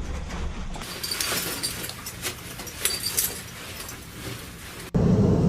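Light metallic clinking and jangling, like loose metal gear being handled, then near the end a sudden cut to the steady low rumble of a jet engine running.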